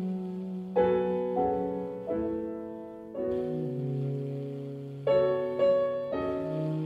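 Acoustic piano in a slow improvised jazz trio performance, chords struck about seven times at uneven intervals, each ringing out and fading, over low notes held beneath them.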